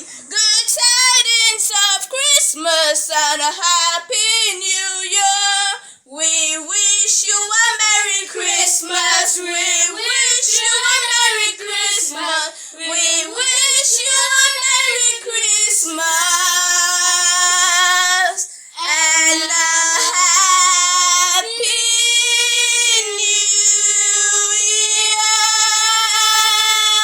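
High-pitched solo singing voice in a carol, running through wavering, melismatic phrases and then long held notes toward the end.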